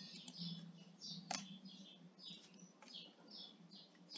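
Faint computer keyboard typing: soft key presses about two a second as a row of hyphens is typed, with one sharper click a little over a second in.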